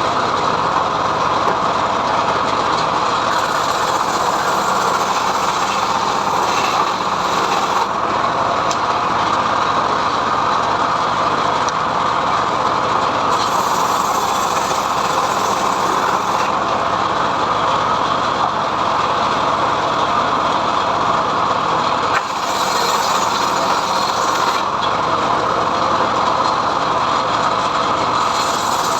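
Homemade log sawmill running steadily at full power, ripping a mahogany log, with a constant loud machine noise.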